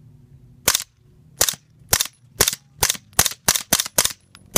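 Suppressed 9mm shots from a Rock River Arms 7-inch pistol upper fitted with a Yankee Hill Machine XL Wraith 9mm suppressor: about ten sharp reports fired one after another, the pace quickening from under a second apart to about three a second.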